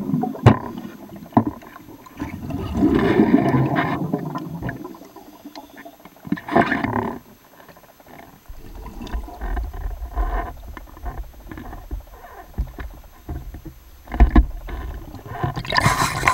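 Underwater noise picked up by a camera carried by a diver beneath a boat hull: swells of water rushing over the camera with a few sharp knocks, then a low steady rumble. It ends in a bright splash as the camera breaks the surface.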